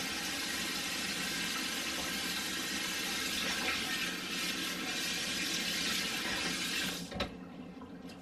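Kitchen faucet running in a steady rush of water, shut off abruptly about seven seconds in.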